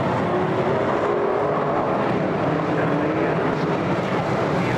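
Several BriSCA F1 stock cars' V8 engines running hard in a race, a dense steady din with engine notes rising and falling as the cars lap.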